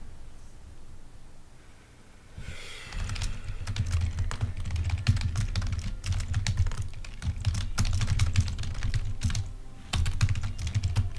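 Typing on a computer keyboard: a quick, uneven run of key clicks starting a couple of seconds in, over a low rumble.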